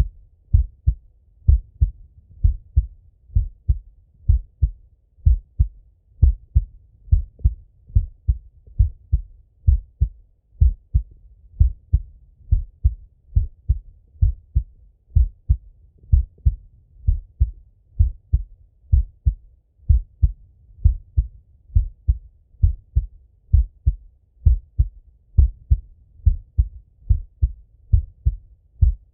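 A man's own heartbeat heard through a Littmann stethoscope: low, muffled thumps in a steady, even rhythm.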